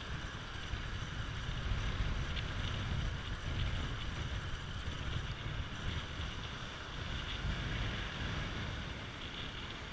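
Surf breaking and washing up the beach, with wind buffeting the microphone as a steady low rumble under the hiss of the waves.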